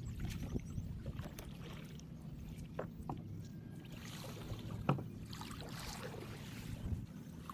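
A plastic-drum boat on the water, with a steady low rumble of wind and water, scattered light knocks, and one sharper knock about five seconds in.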